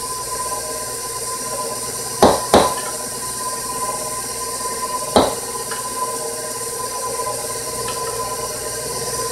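Stand mixer running steadily with a motor whine, its beater working thick cake batter as flour is added. Three sharp knocks of the measuring cup and bowls being handled: two close together about two seconds in, one about five seconds in.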